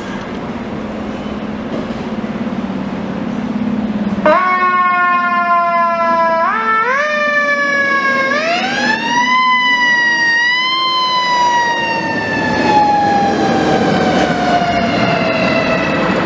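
Idling diesel engine of a 2020 Seagrave Attacker fire pumper, then its mechanical siren cutting in about four seconds in. The siren winds up in steps to a high wail and then slowly winds down.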